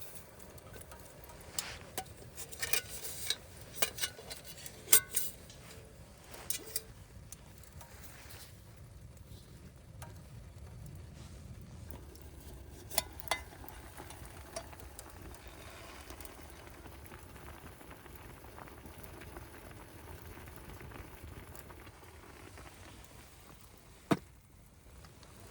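Metal utensils clinking and tapping against a cooking pot: a run of quick taps in the first several seconds, then a few single clinks, one sharp one near the end. Under them is a steady low hiss.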